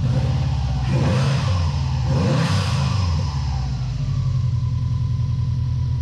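Subaru EJ20 turbo flat-four engine running, blipped up twice about one and two and a half seconds in, then settling back to a steady idle. It runs smoothly on its freshly rebuilt coil pack connector wiring, showing the repair works.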